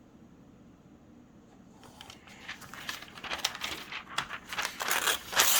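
Glossy catalog paper being torn and crinkled as a page is ripped out. A rising run of rustling and ripping starts about two seconds in and is loudest near the end.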